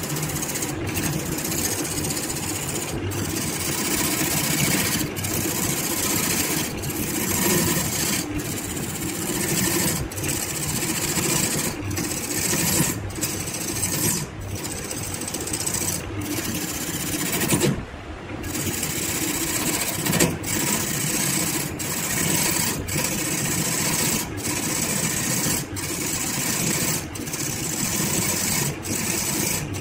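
Wood lathe spinning a wood-and-blue-epoxy blank while a hand-held turning tool cuts it: a steady scraping hiss of the tool against the spinning surface over the lathe's running, breaking off briefly every second or two.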